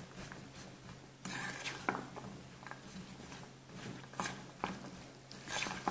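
Metal spoon scraping and clinking against a metal bowl while stirring candied fruit and flour together, coating the fruit in flour. Irregular soft scrapes with a few sharper clinks, a longer scrape about a second in.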